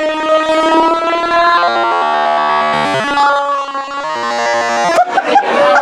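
Music with long held notes in a synthesizer-like tone, moving to a new pitch or chord every second or two. A sharp click comes about five seconds in.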